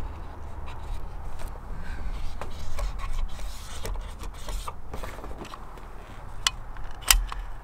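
Light scrapes and taps of hand work on a corrugated metal roof around a stove pipe's rubber boot, with a couple of sharp clicks near the end as a caulking gun is picked up and readied. A low rumble runs underneath.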